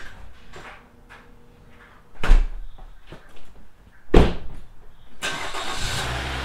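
Two heavy car-door slams about two seconds apart, then a steady mechanical rumble with a hiss that starts about five seconds in and carries on.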